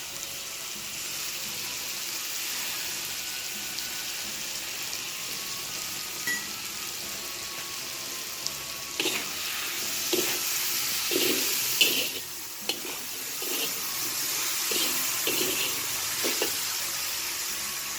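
Seasoned fried-rice mixture sizzling steadily in a hot pan. From about nine seconds in, a spatula scrapes and stirs it in irregular strokes.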